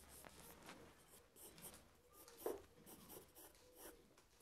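Graphite pencil sketching on drawing paper: faint, quick scratchy strokes, with one brief louder sound about halfway through.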